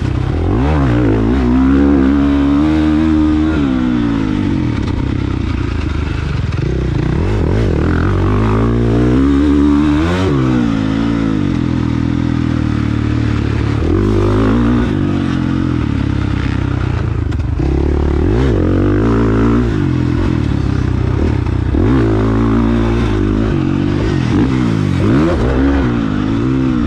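450 motocross bike's four-stroke engine revving up and dropping off again and again as it is ridden hard around the track, the pitch climbing through each burst of throttle and falling back as the rider shuts off, with some clatter and scraping.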